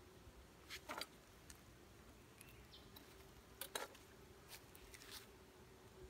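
Wooden top bars of a top bar beehive knocking and scraping as they are shifted by hand: two short clusters of clicks, about a second and about three and a half seconds in, then a few lighter ticks. Underneath, a faint steady hum of honeybees.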